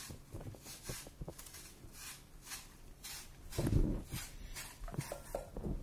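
Hand peeler scraping the skin off a McIntosh apple in short strokes, about two a second, with a louder dull thump about three and a half seconds in.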